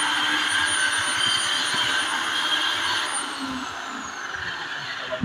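Electric belt sander running on a wooden board with a steady high whine, then switched off about three seconds in, its motor falling in pitch as it winds down.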